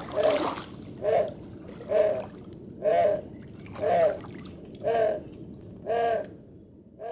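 An animal calling: a short arched note with overtones, repeated steadily about once a second, over a low background hiss.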